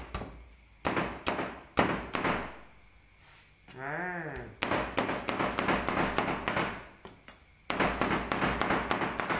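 Chinese cleaver chopping roast pork belly on a plastic cutting board: a few single heavy chops, then quick runs of rapid chopping. A short wavering "ah" from the cook about four seconds in.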